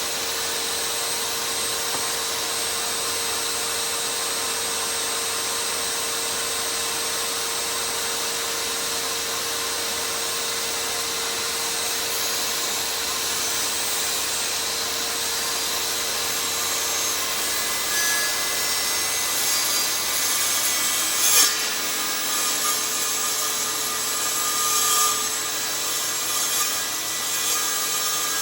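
A power saw running steadily as it cuts through a piece of stag antler, with a single sharp tap about three-quarters of the way through.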